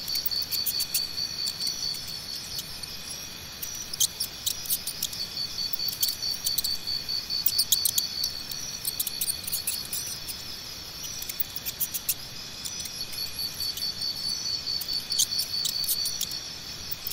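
Crickets trilling in runs of a few seconds with short breaks between, while a mouse nibbles corn kernels close by with small, sharp, crisp clicks.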